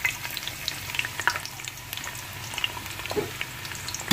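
Chopped onions frying in hot oil in a pot, a steady sizzle with many small crackling pops.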